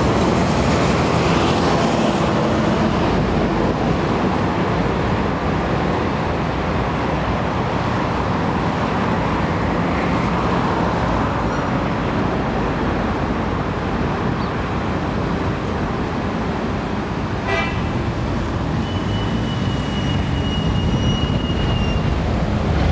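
Steady outdoor rumble of road traffic. A short run of ticks comes about two-thirds of the way in, and a thin high tone sounds for about three seconds near the end.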